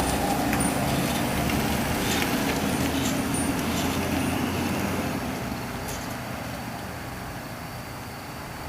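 Ambulance engine running, with steady low tones and road noise; the level drops off over the second half.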